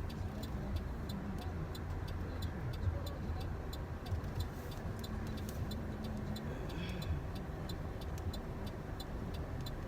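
Car turn-signal indicator ticking evenly, about three ticks a second, over the steady low rumble of the car driving, heard inside the cabin.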